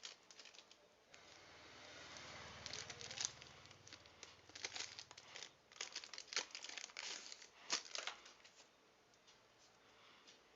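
Packaging of a soldering iron kit crinkling as it is handled and unwrapped, with a dense run of sharp crackles between about two and eight seconds in.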